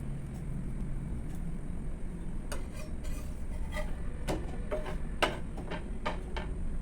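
Scattered light clicks and taps of kitchen utensils, some briefly ringing, over a steady low rumble.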